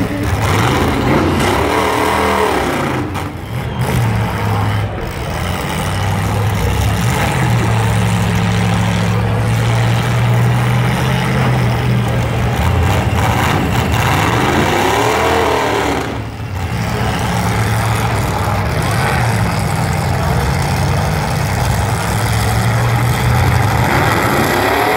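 Demolition derby trucks' engines running loud and revving, the pitch swelling up and falling back a few times over a steady drone.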